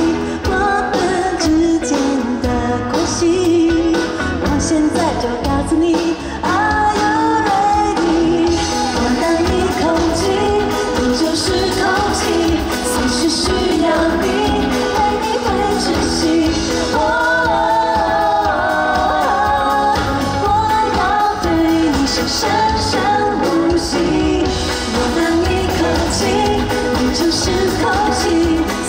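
A pop-rock song performed by a band with a lead singer, with a steady beat under the vocal melody.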